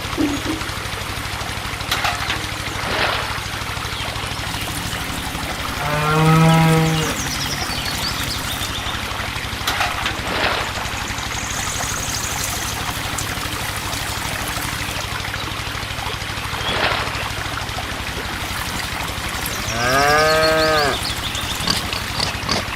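A cow mooing twice: a short, even call about six seconds in and a longer call that rises and falls near the end. A steady low hum and a few scattered knocks run underneath.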